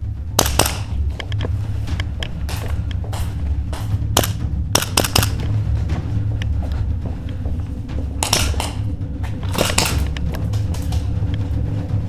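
Tokyo Marui XDM.40 gas blowback airsoft pistols firing sharp single shots, scattered and in small clusters.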